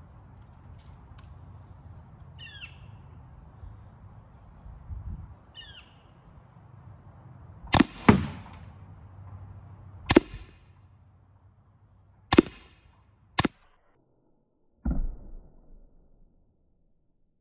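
Valken M17 magfed paintball marker, running on high-pressure air, firing riot balls at a watermelon: five sharp shots over about six seconds, the first two close together. A softer, duller pop follows near the end. The air tank is nearly empty. A bird chirps twice before the shooting starts.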